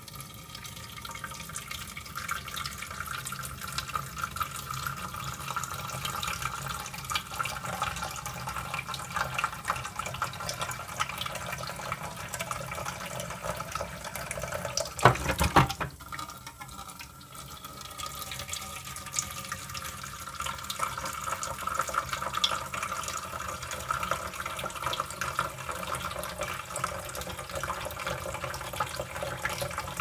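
Tap water running in a steady stream into a 3D-printed plastic water-powered fruit washer in a stainless steel sink, splashing and trickling through its perforated buckets. About halfway through, a brief louder splash and clatter as the tumbler turns over and dumps its water.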